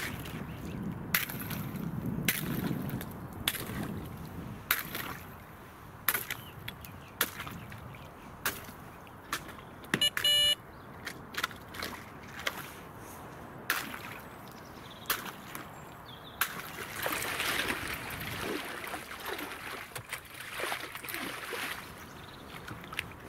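Repeated sharp cracks, about one a second, as the ice at the lake margin is broken to land a hooked carp. A short electronic beep sounds about ten seconds in and is the loudest thing here. In the last few seconds water splashes and sloshes as the fish comes to the net.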